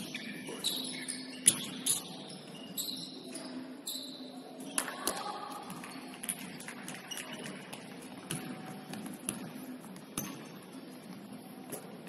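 Basketball game sounds on an indoor court: sneakers squeaking and the ball bouncing, with the loudest thump about one and a half seconds in.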